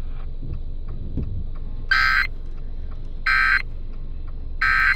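Emergency Alert System end-of-message (EOM) data tones over FM radio: three short, identical bursts of digital screech, evenly spaced a little over a second apart, signalling that the alert is over.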